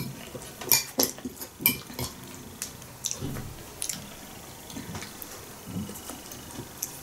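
Metal spoon clinking and scraping against a glass bowl as grated carrot salad is stirred and scooped: a handful of sharp, irregular clinks.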